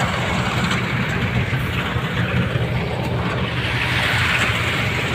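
Engine of a Mahindra paddy harvester running steadily, a continuous low drone. Around four seconds in there is a brief rustling hiss of a hoe scraping through dry grass.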